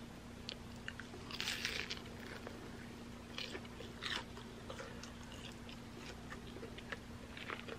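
A person eating close to the microphone: bites and chewing with a few crisp crunches, the loudest about one and a half seconds in.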